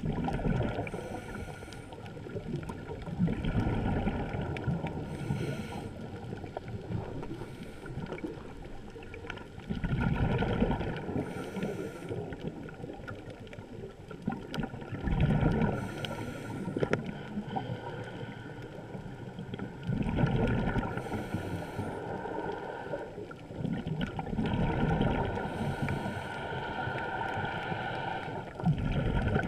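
Scuba diver's regulator breathing underwater: a burst of exhaled bubbles rushing past every five seconds or so, with a fainter hiss of inhaling in between.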